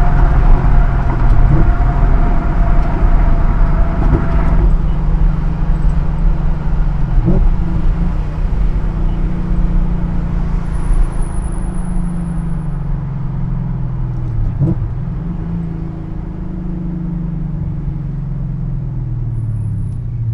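BMW E39 M5's 4.9-litre V8, exhaust muffler deleted, running under way while driving. A steady whine stops about four seconds in, the engine note dips briefly twice, and the engine grows quieter toward the end.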